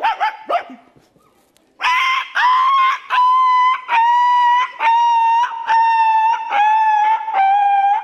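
A man imitating a dog with his voice: a rapid string of about a dozen high-pitched, even yelping barks, each about half a second long, starting about two seconds in and slowly sinking in pitch.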